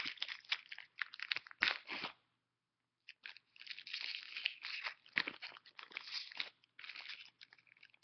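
Foil wrapper of a Pokémon trading-card booster pack crinkling and tearing as it is opened by hand. It comes in two stretches of dense crackling, with a pause of about a second roughly two seconds in.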